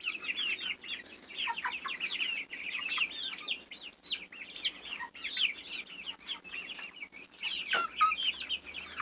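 A flock of young chickens peeping and chirping: many short, high calls overlapping without a break.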